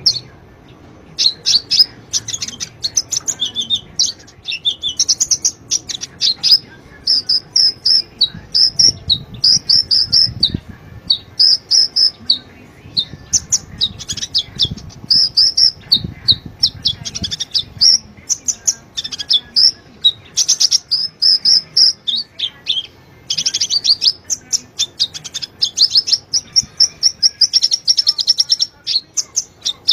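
Olive-backed sunbird (kolibri ninja) singing vigorously: runs of rapid, high chirping phrases come one after another with short pauses between them.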